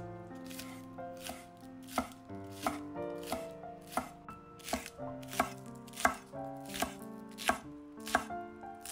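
Chef's knife chopping green onions on an end-grain wooden cutting board: a steady run of knife strikes on the wood, about three every two seconds.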